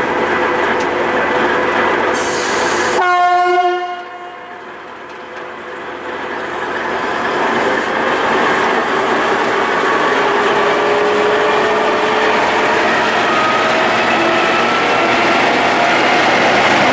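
DR class 232 'Ludmilla' diesel locomotive: a short horn note about three seconds in, then its 16-cylinder diesel engine running under power, its pitch rising steadily as the locomotive pulls past.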